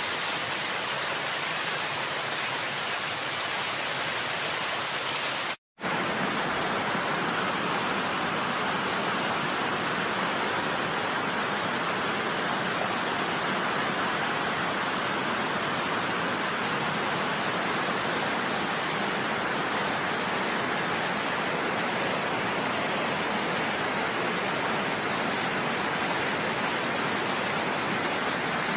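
Steady rushing water. It cuts out for an instant between five and six seconds in, then carries on fuller and less hissy.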